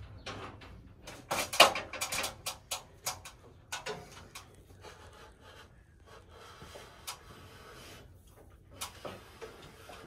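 Light knocks and clicks of copper refrigerant line tubing being handled and fed through the wall framing: a dense run of them in the first four seconds, then only a few scattered knocks.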